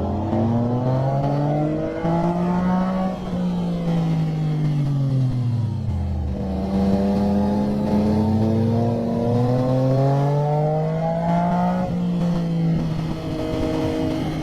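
Motorcycle engine under way, with the revs climbing under throttle, falling back, climbing again for several seconds and then dropping suddenly near the end, as the bike is ridden hard through curves.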